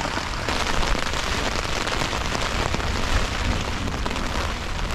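Hard rain pelting a tent, heard from inside: a dense, steady patter of drops on the fabric.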